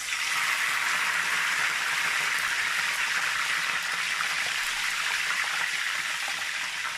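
Pieces of fish frying in hot palm and vegetable oil: a steady sizzle that starts suddenly as the fish goes into the oil, then eases slightly.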